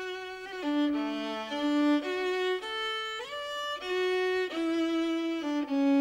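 Background music: a solo violin playing a slow melody, holding each note for about half a second to a second, with gliding slides between some notes.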